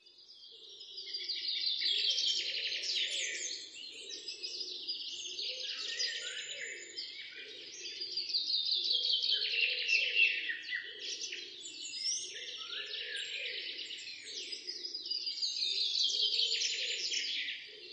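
Birdsong: fast chirping, trilling phrases a few seconds long that recur about every six to seven seconds, over a fainter, lower pulsing sound. It fades in over the first couple of seconds.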